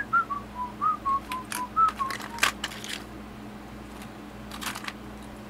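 A man whistling a short tune of about ten quick notes that drift downward over the first couple of seconds, followed by a few sharp clicks and taps of small items being handled.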